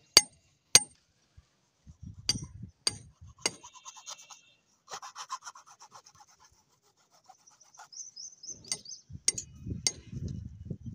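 Sharp metallic strikes of a hammer on a steel chisel against brick, then a metal tool rasping along the edge of a brick tile for a few seconds. More sharp taps with dull knocks come near the end.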